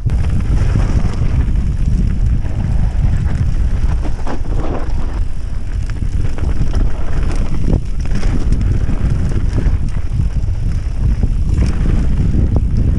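Wind buffeting the microphone of a handlebar-mounted camera on a mountain bike riding down a dirt trail, a continuous low rumble, with mountain bike tyres rolling over the dirt and scattered knocks from the bike.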